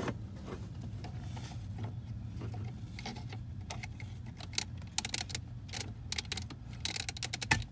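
Handling noises from car wiring and plastic parts: scattered sharp clicks and rattles that come in clusters about midway and near the end, the loudest just before the end, over a steady low hum.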